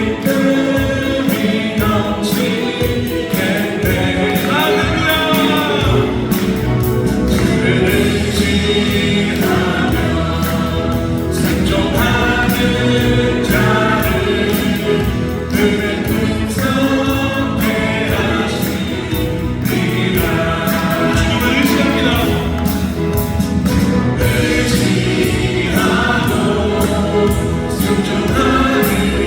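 Gospel music with a choir singing over instrumental backing.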